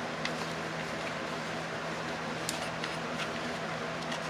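Steady low hum of room background noise, like a fan running, with a few faint light clicks in the second half.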